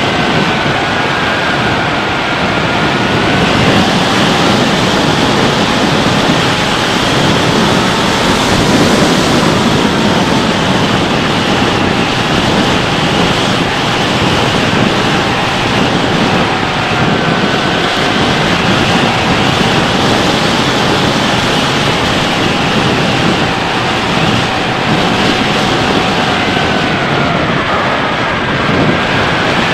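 Air rushing over the onboard camera of a Bixler 3 RC foam plane in flight, a loud steady roar of wind, with the thin whine of its electric motor and propeller slowly rising and falling in pitch under it.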